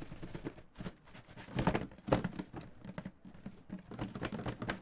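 Cardboard shipping case of trading-card boxes being handled open: flaps rustling and scraping, with irregular light knocks and taps as the wrapped boxes inside shift.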